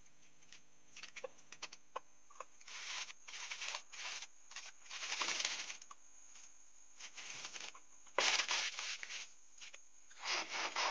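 Aluminium foil rustling and crinkling as it is pulled from its roll and crumpled by hand, in several short bursts.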